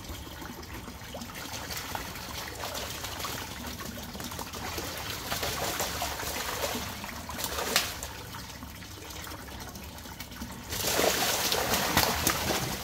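Geese bathing in a shallow cement tank: water splashing as they dip and preen, over a steady trickle of water running in from a pipe. About two seconds before the end comes a louder burst of splashing as a goose beats its wings in the water.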